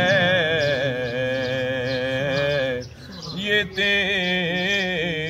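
A man singing an Urdu naat, holding long ornamented notes with a wavering pitch. He breaks off briefly about three seconds in, then sings on.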